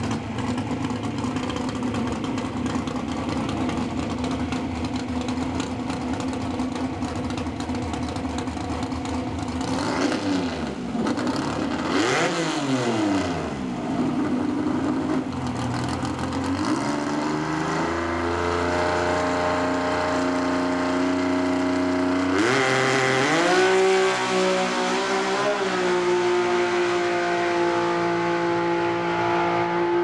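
Ford NASCAR V6 of a Pro Stock drag car idling steadily, then revved in quick blips about ten seconds in and held at raised revs. About two-thirds of the way through it launches at full throttle: the revs climb fast and then hold high as the car pulls away down the strip.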